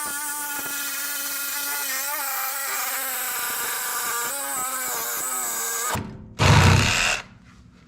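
Reciprocating saw (Sawzall) cutting through a steel Jeep TJ frame rail: a steady, even buzz with a whine that stops abruptly about six seconds in. A short loud burst follows about a second later.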